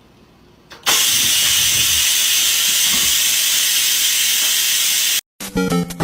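Loud, steady hiss that starts suddenly about a second in and cuts off abruptly near the end, followed by music with plucked notes.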